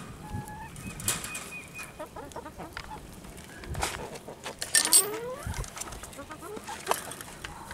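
Backyard chickens clucking and calling, with short calls scattered through and a rising call about five seconds in. Several sharp knocks and rattles come from the wooden run gate and wire being handled, the loudest a clatter about five seconds in.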